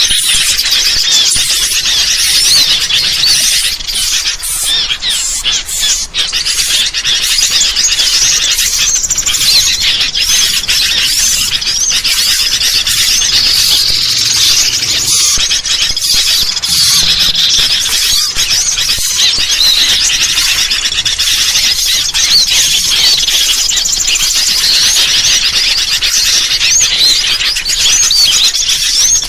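Dense, unbroken chorus of high, rapid chirping bird calls: noisy sooty-headed bulbul chatter mixed with the calls of small birds.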